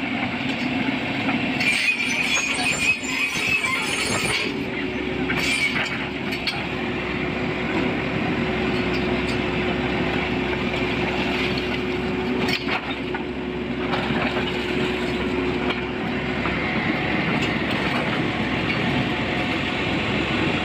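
Heavy vehicle running steadily, with a hissing burst about two seconds in and a steady hum that sets in about four seconds in.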